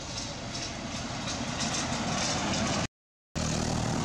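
A motor vehicle engine running steadily with a noisy rumble, growing slightly louder over the first few seconds. About three seconds in, it cuts to total silence for half a second, then resumes.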